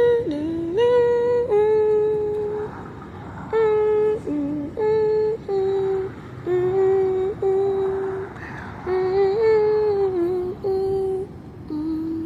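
A woman vocalising a slow wordless melody, warming up her voice: a string of long held notes with short breaks between them.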